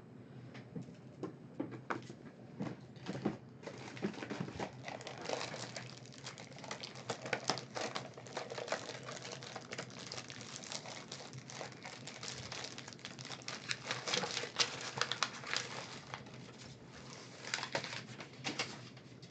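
Trading cards and their wrappers being handled: crinkling and rustling with a dense run of small clicks and crackles. It starts a few seconds in and dies down near the end.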